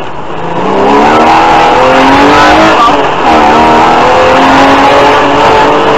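BMW E36 325i rally car's 2.5-litre straight-six engine heard from inside the cabin, accelerating hard with the revs climbing, dipping briefly about three seconds in, then climbing again.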